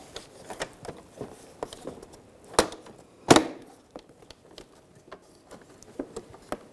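Plastic clicks and knocks of an active grille shutter assembly being pressed down and seated into a plastic front bumper cover, with two louder snaps about two and a half and three and a quarter seconds in.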